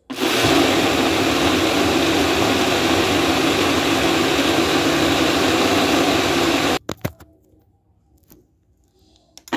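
Countertop blender motor running steadily, blending a thick mixture of nuts, oats and milk. It cuts off suddenly about seven seconds in, a few clicks follow, and it starts up again at the very end.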